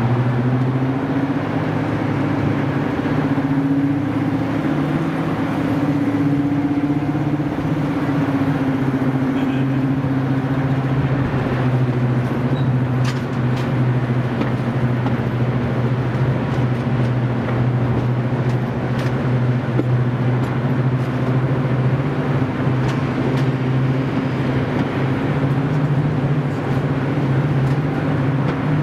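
Diesel locomotive engine running steadily with a deep, even drone, its pitch lifting a little a few seconds in, then settling back.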